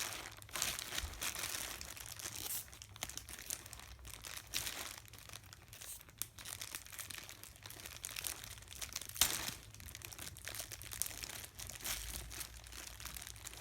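Packing material crinkling and rustling as a new handbag is handled, in irregular crackles, with one louder crackle about nine seconds in.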